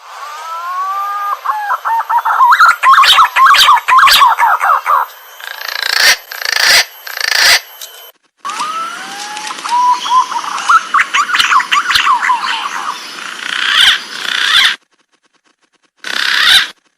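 Green pigeon (punai) song: phrases of whistled notes that start with slow rising glides and break into a rapid, wavering run of notes. Two long phrases, then a short burst near the end, each cutting off abruptly.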